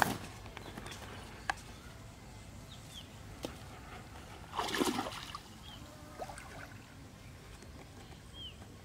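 A small freshly caught fish being unhooked by hand on a bare dirt bank: a few sharp clicks, and a brief scuffling rustle about five seconds in. Faint short chirps sound now and then.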